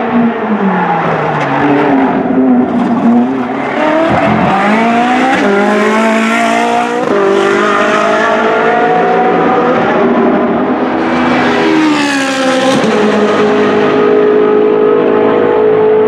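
Ferrari 458 Challenge race car's V8 engine, its note falling as the car slows through a corner, then climbing hard under acceleration with sudden drops in pitch at each quick upshift. The note holds steady over the last few seconds.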